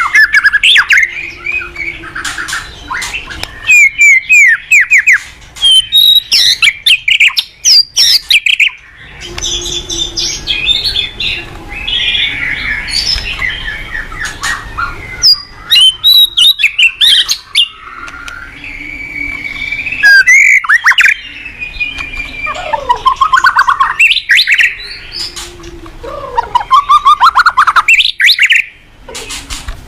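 White-rumped shama (murai batu) in full song: loud, varied phrases of gliding whistles, rapid trills and harsher chattering notes, one after another with short pauses.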